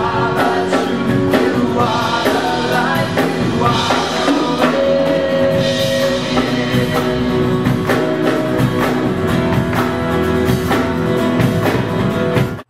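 Live contemporary worship band with drum kit, guitar and voices singing. The music cuts off abruptly near the end.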